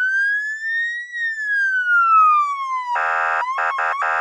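Electronic emergency-vehicle siren wailing: one slow rise in pitch that peaks about a second in, then a slow fall. From about three seconds in, a buzzy horn blasts in several short bursts over it.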